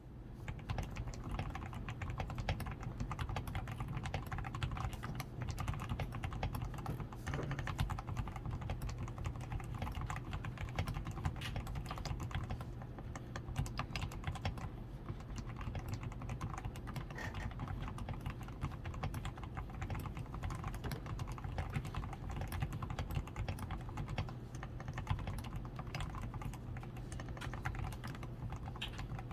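Continuous typing on a DAREU A87 Pro mechanical keyboard that has been modded for sound: switches fully lubed with Krytox 105 and reinforced with foam, PCB tape mod, lubed stabilizers and XDA keycaps. It makes a dense, steady stream of keystrokes.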